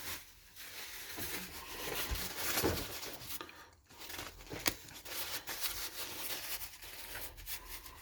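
Rustling, crinkling and rubbing as the dirty old steering plate from an RC truck is wiped clean by hand, with one sharp click a little past halfway.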